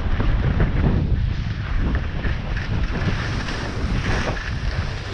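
Rushing wind buffeting the microphone of a camera carried by a moving skier, with the steady hiss and scrape of skis sliding on hard-packed snow.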